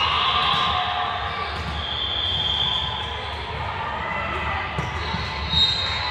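Voices and calls echoing in a large gym during a volleyball rally, with a single sharp ball contact about five and a half seconds in.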